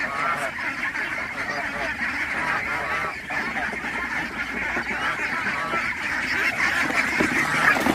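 A large flock of domestic ducks quacking all at once in a dense, unbroken clamour as they crowd around feed, a little louder near the end.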